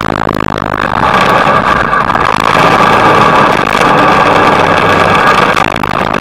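Motorcycle engine running steadily at low revs with road noise, the wind hiss weak as the bike rides slowly behind a car.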